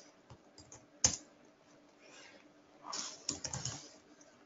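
Computer keyboard typing: a lone keystroke about a second in, then a quick run of keystrokes from about three seconds in.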